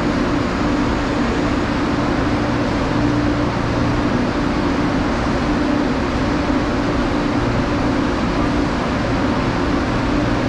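Electric commuter train at a station, a steady rumble with a constant low hum that neither rises nor falls.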